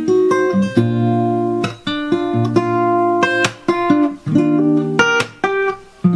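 Acoustic guitar playing an instrumental passage between sung lines: chords struck one after another, each left to ring.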